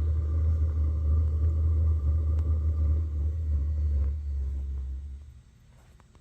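An 8 kW diesel air heater converted to burn used oil, running with a steady low rumble that fades away about four to five seconds in.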